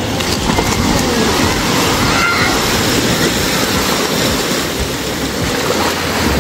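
Sea surf: a steady, loud rush of waves washing onto the shore.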